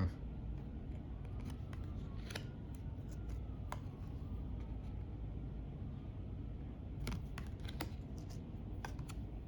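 Tarot cards being handled and flipped, giving a scattered run of light clicks and taps over a steady low hum.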